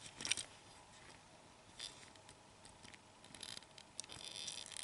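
Faint, scattered light clicks and rustles of fingers handling and turning a small die-cast metal toy pickup truck.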